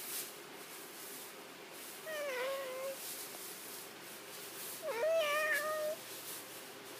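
A domestic cat meowing twice, about two seconds apart: two drawn-out calls of nearly a second each, the second a little longer and swooping up before it holds its pitch.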